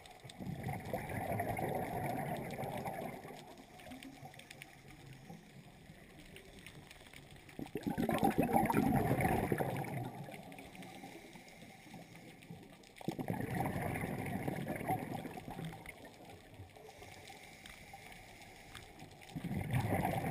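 Scuba diver's exhaled breath bubbling out of the regulator underwater in four bursts, each lasting two to three seconds, at slow, uneven intervals, with a faint steady hiss between breaths.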